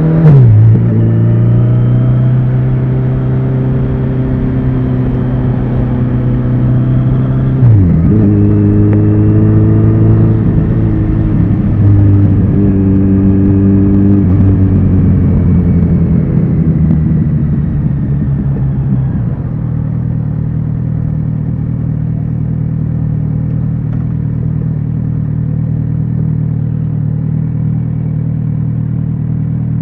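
Kawasaki Z900RS inline-four motorcycle engine and exhaust under way, with quick drops in engine speed just after the start and about eight seconds in, as on a gear change. Revs fall off between about 15 and 19 seconds, and the engine then runs at a steady low speed.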